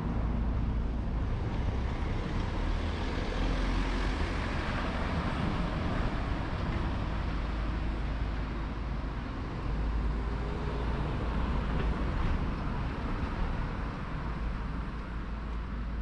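A car driving along a narrow street: engine and tyre noise over steady street ambience, with a low rumble that eases off near the end.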